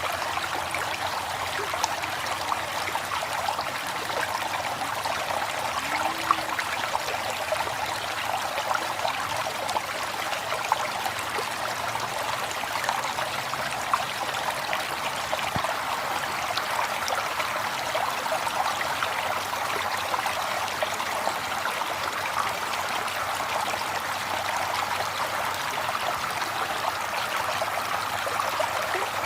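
River water flowing steadily, a continuous rushing and trickling with small splashes.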